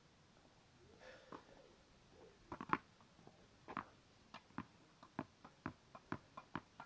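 A run of sharp light taps, a few a second, from a tennis player on the hard court close to the microphone, after a few louder knocks in the middle.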